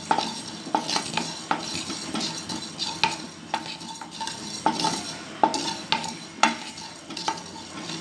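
Spatula stirring fenugreek, cumin and mustard seeds around a metal pan as they roast: irregular scrapes and taps, about two a second, each with a brief ring from the pan, over a light hiss.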